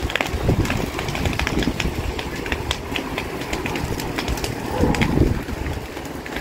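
Dry brush fire crackling, with many scattered sharp pops over a low steady rumble.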